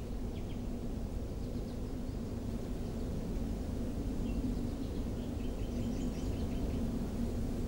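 Steady low outdoor rumble with a faint hum running through it, and a few faint bird chirps, including a quick run of chirps about five and a half seconds in.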